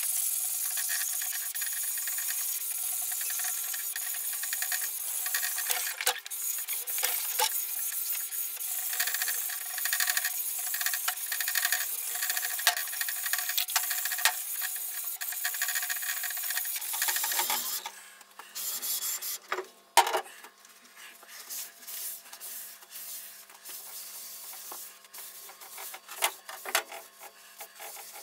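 Iron parallel bar being rubbed back and forth over an old surface plate with lapping abrasive: a steady gritty scraping hiss. It stops about two-thirds of the way through, leaving scattered light knocks and clicks as the bar and plate are handled.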